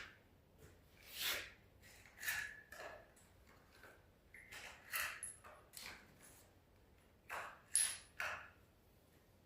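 Scattered light clicks and metallic clinks, about eight over several seconds, some with a short ring, as spark plugs and hand tools are handled.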